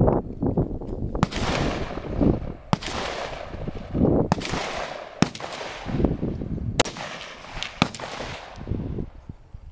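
Firearm gunshots: six sharp reports at uneven intervals of about one to one and a half seconds, each trailing off in a long echo.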